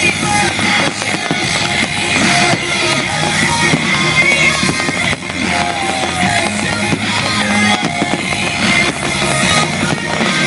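Rock music with electric guitar playing steadily, with a few firework bangs mixed in.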